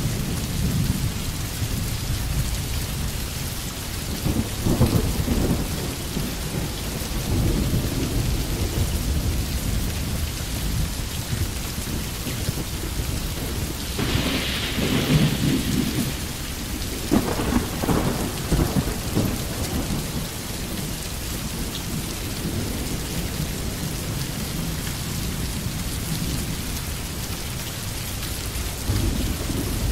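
Steady rain from a rain-and-thunder ambience track, with low rolls of thunder swelling up several times, the strongest about halfway through.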